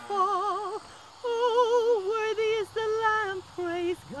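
Female singing voice holding short, wavering notes with a strong vibrato, in phrases broken by brief pauses.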